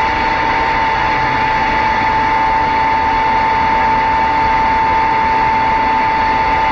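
A CB radio receiving a steady, unbroken whistle-like tone over loud hissing static on the channel.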